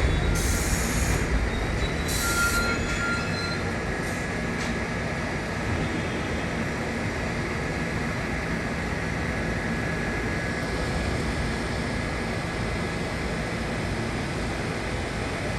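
New York City subway train moving through the station: a low rumble that fades over the first few seconds, thin steady wheel squeal, and two short high hisses early on. A steady even noise follows as the train recedes.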